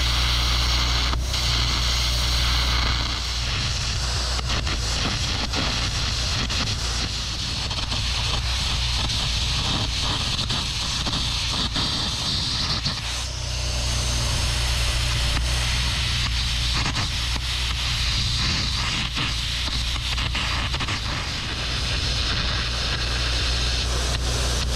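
Air carbon arc gouging: the carbon rod's arc crackling and sputtering under a continuous hiss of compressed air as it blows molten steel out of the trailer tongue's welds, with a steady low hum underneath.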